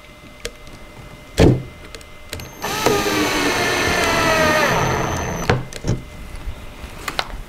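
Cordless drill driving a screw into wood, running for about three seconds with a whine that falls in pitch. A knock about a second before it starts, and a few light clicks after it stops.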